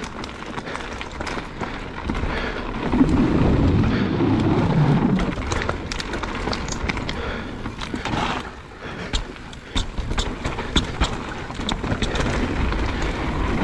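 Mountain bike riding down a bike-park trail: steady tyre noise on dirt with frequent sharp clicks and rattles from the bike, louder for a couple of seconds about three seconds in.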